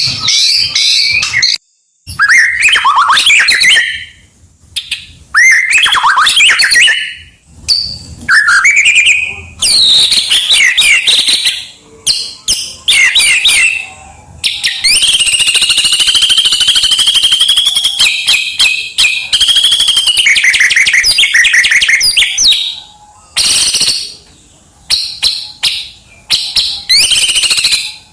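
White-rumped shama (murai batu) singing hard: loud, varied phrases of sweeping whistles and rapid chattering notes, loaded with mimicked calls of other birds, with short pauses between phrases. Near the middle it holds one long, even, rapid trill for several seconds.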